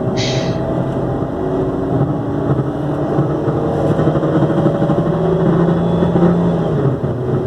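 Ford Focus 2.0 Duratec engine running with a tinny rattling vibration like a can knocking, the sign of a broken engine mount letting metal rub on metal. Engine speed lifts a little about five seconds in, and there is a short hiss just after the start.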